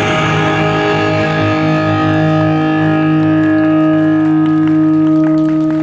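Yosakoi dance music ending on a long held final chord, with electric guitar ringing out. A few sharp clacks come in near the end.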